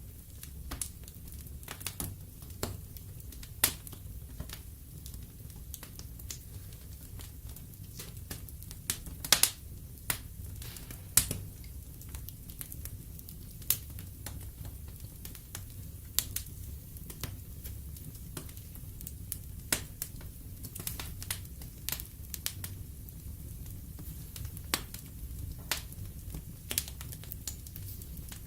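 Wood fire in a fireplace crackling and popping: irregular sharp snaps, a few louder pops among many small ones, over a low steady rumble of the burning.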